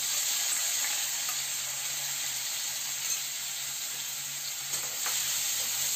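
Chopped onions frying in hot mustard oil in an aluminium kadhai: a steady sizzle, with a couple of faint clicks.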